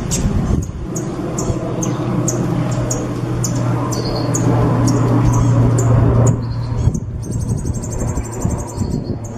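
A songbird singing: sharp, high chirps about twice a second, breaking into a rapid high trill near the end, over a steady low hum.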